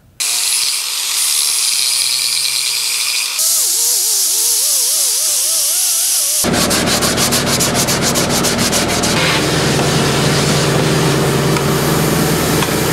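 Air-powered rotary sanding disc grinding the subwoofer box's port flush, a steady high hiss. About six seconds in it gives way to a shop vacuum running, a fuller, steady noise.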